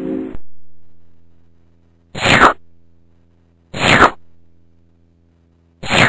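A held music chord breaks off and dies away. Then three loud slurps of soup from a spoon, each about half a second long and falling in pitch, spaced about a second and a half apart.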